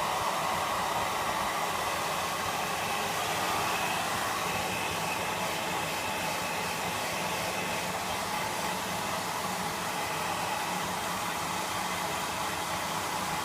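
Hair dryer blowing steadily, an even rush of air with a faint steady motor whine.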